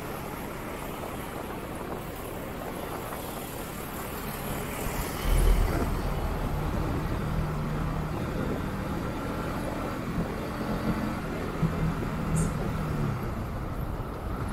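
Wind and road noise from a motorcycle riding along a busy highway in traffic. About five seconds in, a loud low engine drone sets in, its pitch wavering, and carries on through most of the rest.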